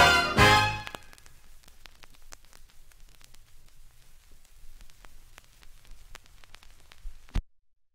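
A brass-led dance band hits its final chord in the first second, then only the 78 rpm record's surface noise remains: faint hiss with scattered crackles and ticks, cutting off suddenly near the end.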